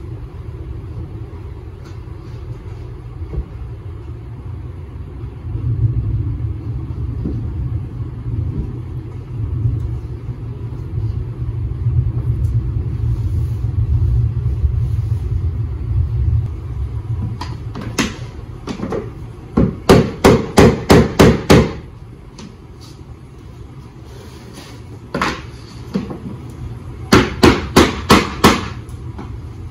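Hammer blows on laminate flooring planks as they are tapped into place: a single blow, then a quick run of about six strikes, another lone blow, and a second run of about six near the end. Before the hammering, a steady low rumble.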